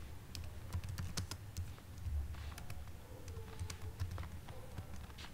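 Computer keyboard keys clicking at an irregular pace as a short command is typed, over a faint low hum.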